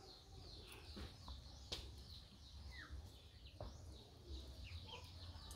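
Faint, high bird chirps: many short falling calls repeating, with a couple of soft clicks.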